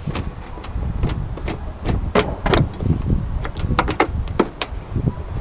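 Irregular run of sharp clicks and knocks, about a dozen, from hand work fitting parts of a pickup's headlight assembly.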